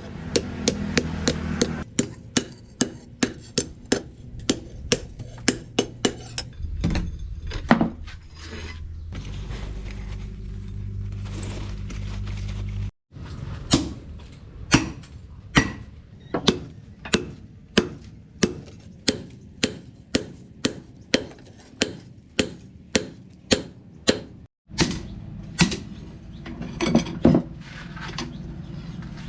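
Hand hammer striking hot leaf-spring steel on an anvil, in steady runs of about two blows a second. About nine seconds in, the hammering pauses for a few seconds under a steady low hum.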